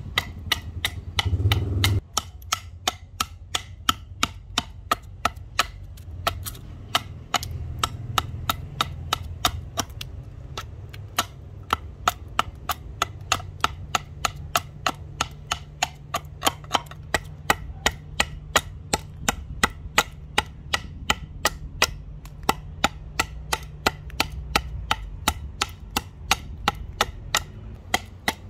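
Machete blade chopping into a Siamese rosewood axe-handle blank in quick, light, even strokes, about three sharp knocks a second, as it cuts away wood at the handle's shoulder.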